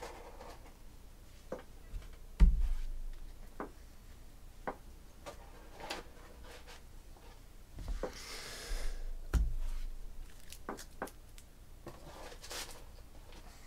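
Tabletop handling sounds as trading cards are put into plastic sleeves: scattered light clicks and a brief rustle, with two dull thumps about two and a half and nine and a half seconds in.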